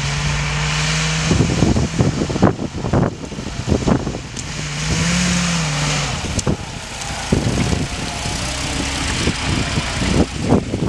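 Military jeep engine running as the jeep drives off-road over rough, grassy ground, with a short rise and fall in engine speed about five seconds in. Frequent knocks and rattles from the jeep bumping over the uneven ground, over a steady hiss.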